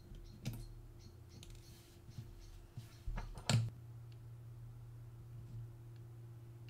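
Small metallic clicks and taps from hands and a screwdriver working on the opened Hasselblad 2000FC camera's winding mechanism, with a louder knock about three and a half seconds in, over a low steady hum.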